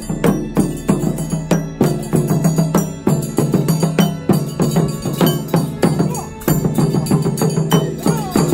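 Group of taiko players beating hand-held drums with wooden sticks in a fast, steady rhythm of sharp strikes.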